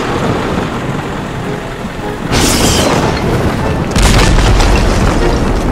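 Rain and thunder sound effects: steady rain, a sharp thunder crack about two and a half seconds in, then a deep thunder boom from about four seconds in.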